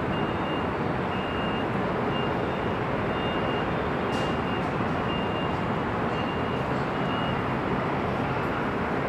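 Steady roar of dense highway traffic, tyres and engines blending into one continuous noise. A faint, short high beep repeats about once a second over it.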